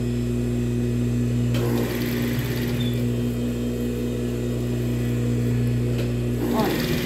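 Table-mounted industrial-style sewing machine with its motor humming steadily. It stitches a continuous run, a fast even needle rattle from about a second and a half in until near the end, sewing a gathered ruffle onto fabric.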